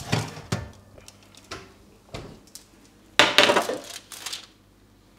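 Kitchenware being handled as the baked syrniki are taken out of the oven: a few separate knocks and clinks, then a louder clatter lasting about a second, a little after three seconds in.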